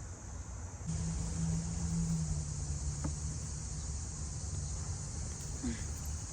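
A steady high chorus of crickets and other insects over a low, steady hum, both coming in suddenly about a second in.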